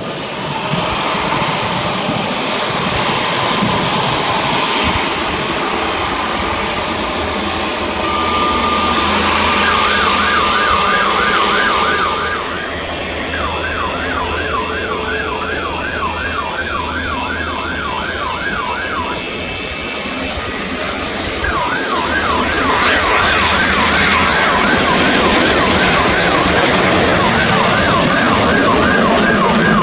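Jet airliner engine noise: an EVA Air Boeing 787-9 climbing out after takeoff, then a Cathay Pacific Airbus A350-900 on final approach on its Rolls-Royce Trent XWB engines. From about eight seconds in, an emergency vehicle siren sounds over it. It holds one steady tone, then goes into a fast rising-and-falling yelp about three times a second, with two short breaks.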